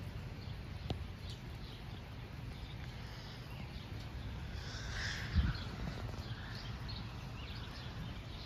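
Outdoor storm ambience: a steady low rumble with birds calling now and then, the clearest call about five seconds in, followed by a brief low thump.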